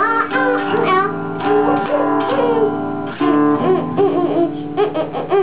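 Hollow-body archtop electric guitar strummed in sustained chords that stop and restart, with a child's wordless vocalizing wavering over them.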